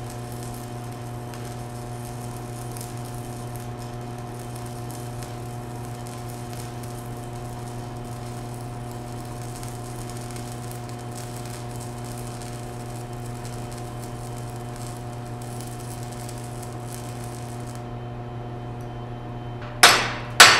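Stick (MMA) welding arc burning on steel plate from a VEVOR 140A inverter welder: a steady hiss and crackle over a low hum, cutting off near the end as the arc is broken. Two sharp metallic knocks follow just before the end.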